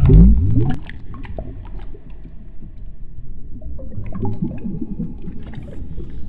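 Water-drop sound effects: a deep, loud plop rising in pitch at the start, then a patter of smaller drips and splashes, with a second rising plop about four seconds in.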